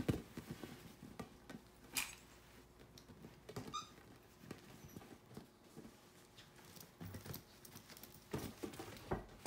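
Capuchin monkey scrambling and bouncing on a large ball on a bed: irregular soft thumps and patter of its hands and feet on the ball and bedding, with a harder thump at the start and another about two seconds in. A brief squeak comes about three and a half seconds in.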